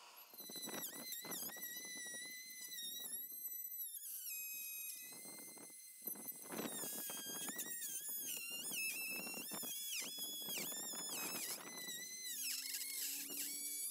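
High-speed power carving tool grinding into wood: a high whine that sags in pitch each time the cutter bites, then climbs back, over a rough grinding noise.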